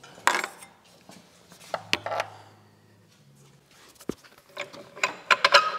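Metal parts knocking and clanking as the rear mount and subframe are worked into place by hand under a Mitsubishi Evo 8. There are scattered single knocks, then a quick run of clicks and clanks near the end as the part goes home.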